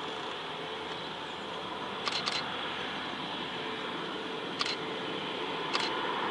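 Steady jet engine noise of an Airbus A350-900 airliner, with camera shutters clicking four times: a quick pair about two seconds in, then single clicks at about four and a half and near six seconds.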